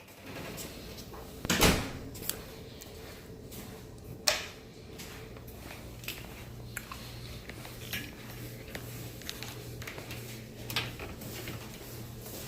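Knocks, clicks and rattles of dishwasher racks and parts being handled while the machine is taken apart, with a sharp knock about a second and a half in and another about four seconds in. A low steady hum sits underneath in the second half.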